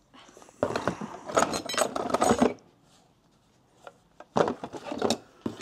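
Small metal jewelry jingling and clinking as it is handled and rummaged through in a box: a long jangling clatter over the first two and a half seconds, then a shorter one near the end.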